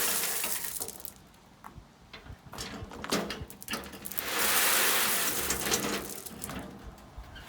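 Gravel being shoveled: a shovel scraping into loose gravel and the stones pouring off it in a rush. There are two long rushes, one at the start and one about halfway through, with scattered clicks of stones in between.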